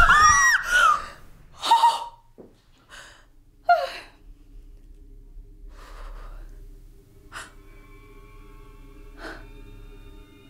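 Women screaming in fright, then a woman gasping and panting in short ragged breaths and whimpers. A faint steady drone runs under the second half.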